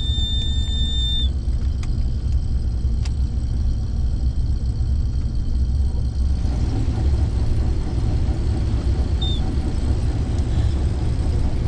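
Combine harvester running with the separator being engaged: a steady low rumble. A high, steady warning tone cuts off about a second in, and the machine's noise grows fuller from about six seconds in as the threshing rotor comes up.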